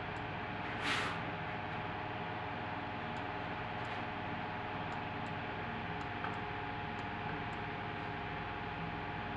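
Steady background hiss with a faint hum, a short burst of hiss about a second in, and a few faint scattered ticks.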